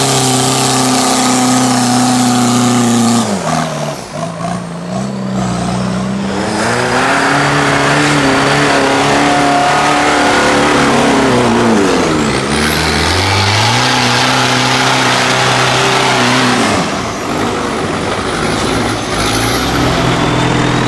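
A modified 4x4 off-road vehicle's engine revving hard. The revs are held high, drop sharply about three seconds in, then rise and fall again several times, with a deep dip and a quick climb near the middle and another drop near the end. A steady rush of wheels churning mud and water runs under the engine.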